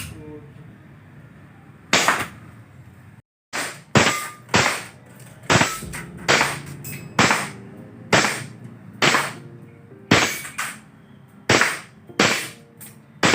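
Gas blowback airsoft pistol firing a string of single shots, sharp cracks roughly one every half second to a second, with a brief gap about three seconds in.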